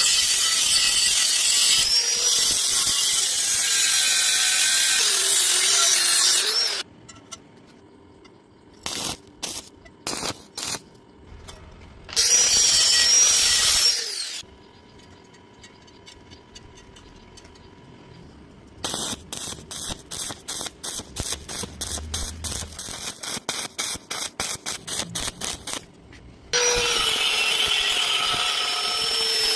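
Metalworking power tools at work: long stretches of loud noise with a wavering high whine, broken by quiet gaps and short bursts, and a run of rapid, evenly repeated short bursts in the middle.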